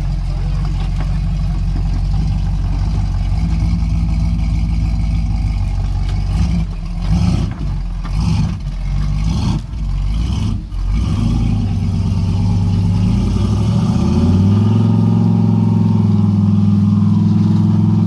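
A Nissan Xterra's engine runs steadily while the SUV crawls a rough trail. Several knocks and jolts break in a third of the way through, and about two-thirds in the engine revs up and holds at a higher pitch.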